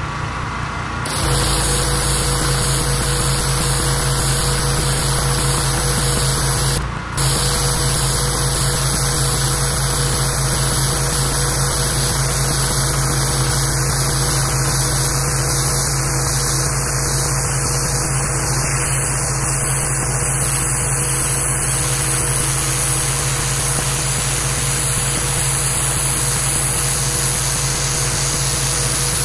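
Pressure washer running: a steady engine hum under the hiss of a high-pressure water jet from a long wand blasting grime off a concrete sidewalk. The spray starts about a second in, and there is a short break about seven seconds in.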